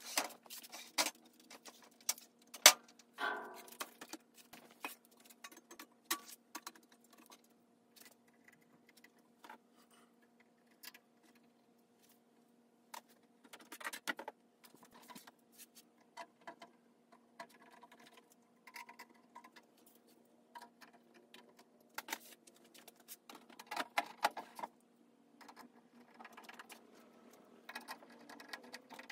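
Scattered clicks, knocks and rattles from a metal PC-tower control box being handled on a stainless steel table and cables being worked at its back, with one sharp knock about three seconds in as the loudest. A faint steady hum runs underneath.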